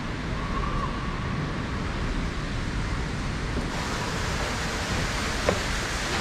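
Steady rushing background noise, even throughout with no distinct events.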